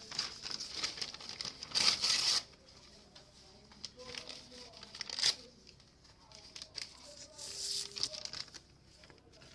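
Paper being torn and crumpled by hand: one loud rip about two seconds in, then quieter rustling and a few shorter tears.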